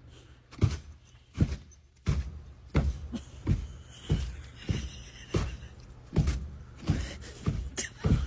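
Background music with a steady, deep thudding beat, about three beats every two seconds.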